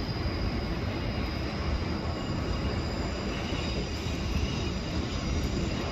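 Strong wind blowing across the microphone high on a building under construction: a steady rumbling rush, heaviest in the low end.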